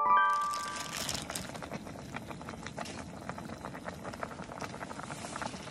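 Motsunabe hot pot boiling in its pot: a steady, dense bubbling crackle of simmering broth. The last notes of a rising chime melody ring out in the first second.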